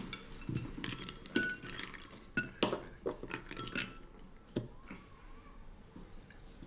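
Glasses, dishes and cutlery clinking and knocking on a dinner table: several separate sharp clinks, some ringing briefly.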